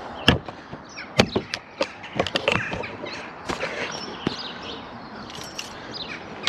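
Irregular knocks and clunks of someone climbing up into a tractor cab, with birds chirping in the background.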